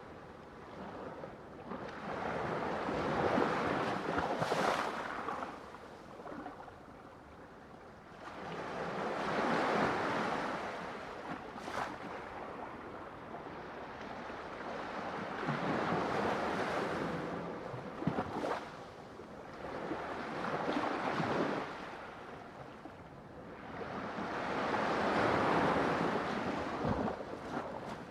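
Ocean waves breaking and washing in, swelling and ebbing about every six to eight seconds, with a few brief splashes or clicks within the surf.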